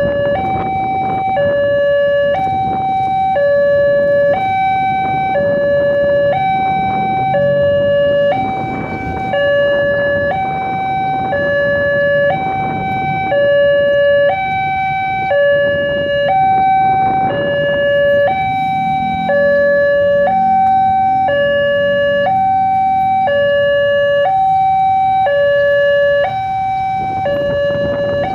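Electronic railway level-crossing alarm sounding, switching steadily back and forth between two tones about every half second. This is the common, generic crossing alarm, sounding as the warning that a train is approaching. Road traffic and idling motorcycle engines run underneath.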